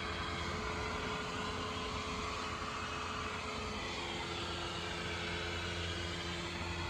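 Steady hum of a small 12-volt inflatable blower fan keeping the decoration inflated, with a low drone underneath.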